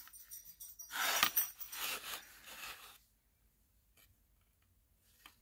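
Scraping and rubbing of the drawer's thin wood-grain board panels as they are handled and pressed together on the table, with a knock about a second in. After that it is nearly quiet apart from two faint clicks near the end.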